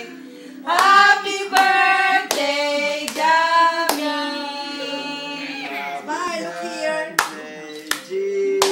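Voices singing a song together, with hand claps keeping time about every three-quarters of a second. The claps stop for a few seconds in the middle and start again near the end.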